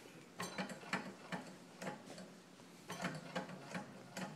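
Small homemade Stirling engine fan's mechanism clicking and clacking as the fan turns, a few uneven clicks a second.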